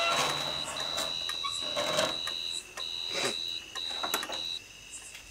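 Electronic alarm sounding a shrill steady beep in several long stretches with short breaks, stopping near the end, with a few clicks and knocks from the device being handled. It is a wire-triggered alarm set up to scare off elephants.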